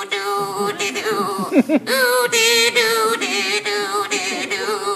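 Mr. Punch's swazzle voice: a buzzy, reedy squawk sung in long held notes with a wavering pitch, with a brief break and some sliding squawks near the middle.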